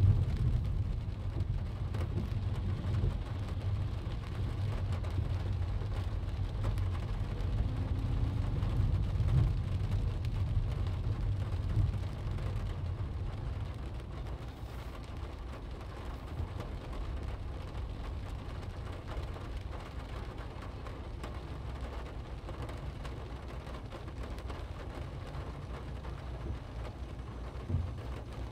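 Rain falling on a car's windscreen and body, heard from inside the cabin, with scattered faint drop ticks over a steady low rumble of tyres on a wet road and the engine. The rumble eases a little about halfway through.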